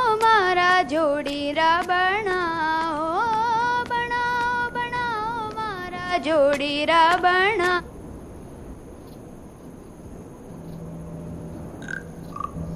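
A girl's solo voice singing a Rajasthani folk melody unaccompanied, in long held notes with wavering ornaments and turns. The singing stops about eight seconds in, leaving a low background hiss with a few faint short tones near the end.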